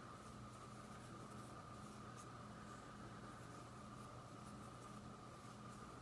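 Very faint rustling and scratching of cotton macramé cord being handled, the threads passed one by one over a held guide cord to tie the knots, over a steady faint hum.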